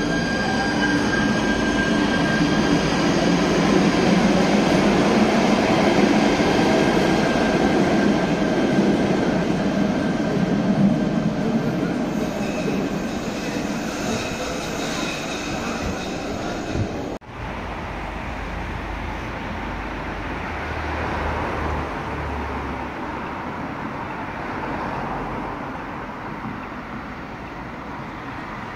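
Stadtbahn light-rail train running in an underground station tunnel: echoing rumble and wheel noise with steady whining tones at first, and a high wheel squeal in the second half. It cuts off suddenly about 17 seconds in, giving way to quieter street-level rail and traffic noise as a low-floor tram draws near.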